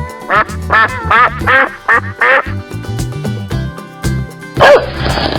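Cartoon duck quacking about six times in quick succession over children's background music with a steady beat. A louder, noisier sound comes near the end.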